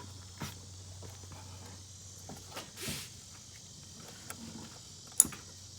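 Small clicks and rattles of a throttle cable being unhooked from the throttle body, with one sharp click about five seconds in, over a faint steady hum.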